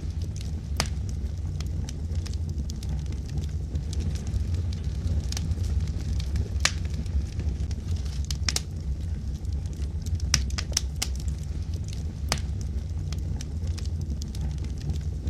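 Wood logs burning in a fireplace: a steady low rumble of the flames with irregular sharp crackles and pops.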